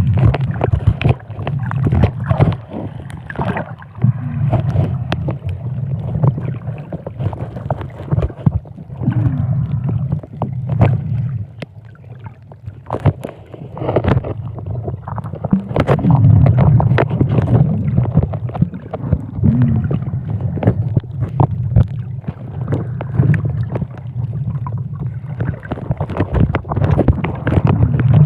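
Muffled water sound picked up by a camera held underwater: a heavy low rumble of moving water with irregular clicks, crackles and gurgles.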